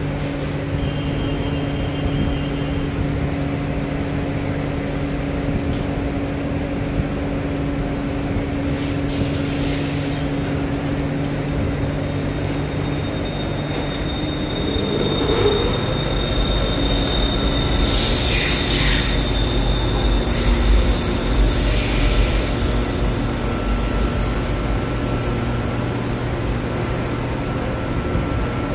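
BTS Skytrain electric train at a station: a steady hum, then from about halfway through a louder rumble of the train on the rails with high-pitched wheel squeal.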